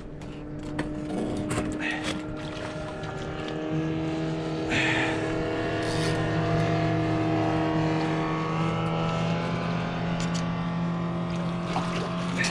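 A motorboat engine running with a steady hum, growing louder over the first few seconds and then holding level. A few splashes and knocks from a hooked fish at the water's surface.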